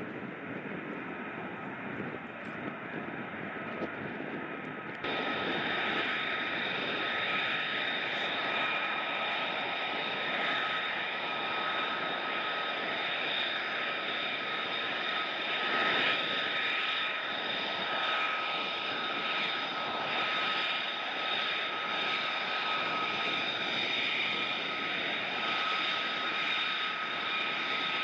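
Jet aircraft engine running steadily, a rushing noise with a high whine. About five seconds in it jumps abruptly louder, and the whine stands out at several pitches from then on.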